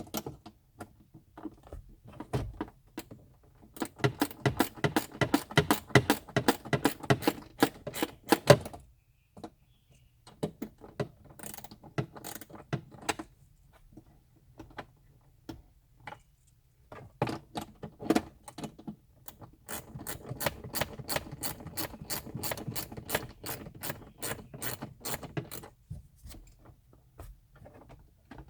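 Small socket ratchet wrench clicking in fast runs as a 7 mm bolt holding the gauge cluster is backed out, two long stretches of rapid ratcheting with a few single clicks between.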